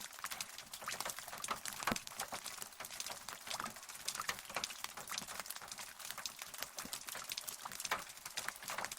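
Rain falling as a dense, irregular patter of separate drops, crisp and high, with no thunder.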